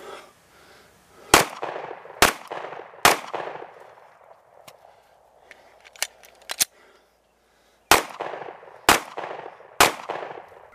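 Semi-automatic pistol fired six times: three shots about a second apart, a pause of a few seconds with a few metallic clicks as the magazine is changed, then three more shots about a second apart. Each shot trails off in a short echo.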